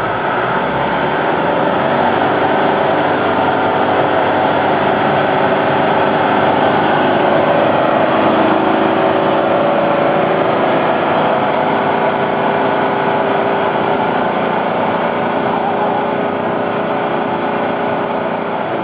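Truck engine running steadily, swelling a little louder around the middle and easing off slightly towards the end.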